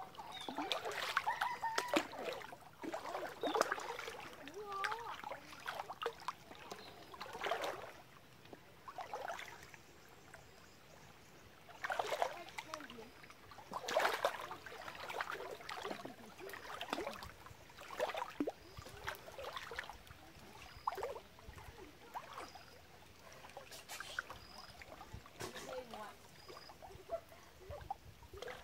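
Feet wading through shallow creek water, a splash at each step about every one to two seconds.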